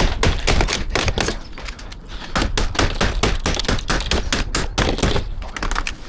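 Brittle old conservatory roof being broken up by hand: a rapid, irregular run of sharp cracks and snaps, with a short lull about two seconds in.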